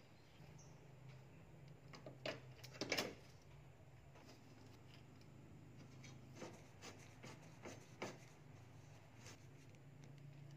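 Faint, scattered clicks and knocks of a plastic car grille being worked on and fitted, over a low steady hum.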